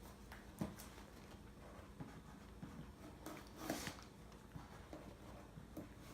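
Cardboard subscription box being handled and opened: faint scattered taps and knocks, with a brief louder scraping rustle a little past halfway.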